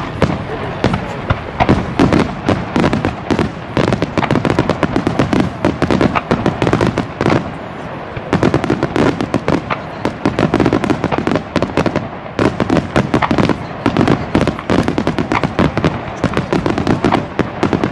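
Aerial fireworks display: shells bursting in rapid succession, a dense, continuous run of bangs and crackles that thins only briefly about eight seconds in.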